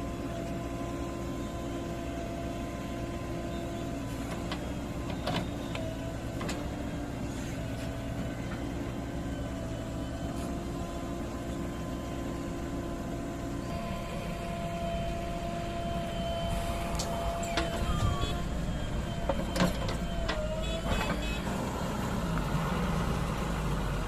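Diesel engines of a loaded tipper truck and a JCB 3DX backhoe loader running steadily. About halfway through the sound grows louder and rougher as the machines move, with a few scattered knocks.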